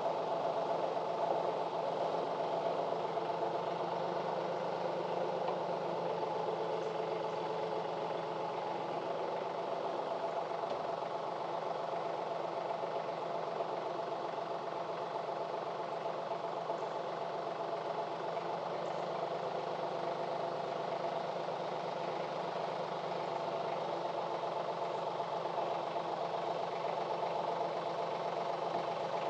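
Branson 2515 compact tractor's diesel engine running steadily while its boom pole hoists a roof truss.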